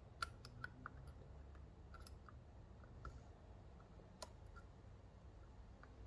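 Faint, irregular metallic clicks and ticks of a triangular dimple pick probing the inner pins of a MUL-T-LOCK Classic pin-in-pin lock cylinder. The sharpest clicks come about a quarter second in and near four seconds in.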